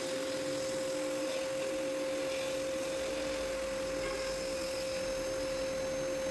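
Homemade drum sander running, its electric motor giving a steady, single-pitched whine.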